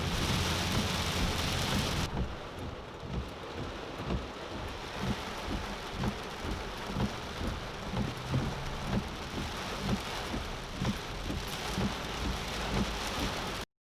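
Heavy tropical-storm rain drumming on a moving car, with a regular low thump repeating about every two-thirds of a second. The hiss drops about two seconds in, and the sound cuts off suddenly near the end.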